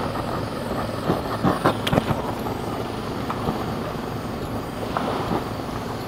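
Small Weller butane torch running steadily as it heats a seized brass outboard fuel tap, its steady hiss mixed with outdoor background noise. A few light clicks come about one to two seconds in.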